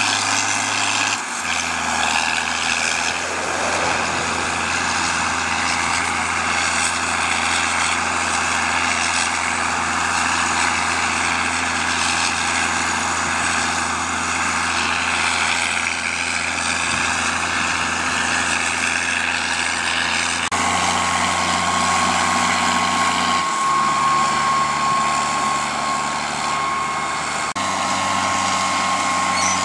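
John Deere 4650 tractor's diesel engine running steadily while pulling a 24-row bean planter. The engine note shifts abruptly a few times, and a steady high whine comes in about two-thirds through.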